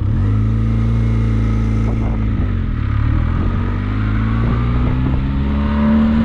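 Benelli motorcycle engine pulling away and accelerating: its pitch rises quickly at the start, holds, dips briefly about two and a half seconds in, then climbs again.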